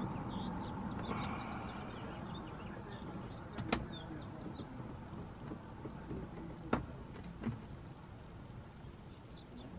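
Quiet handling noise of fingers working a small mounting plate into a car door's sheet-metal speaker opening, with two sharp clicks a few seconds apart and a softer one after.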